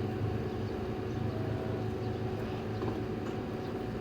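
Steady low machine hum with a faint constant whine over it.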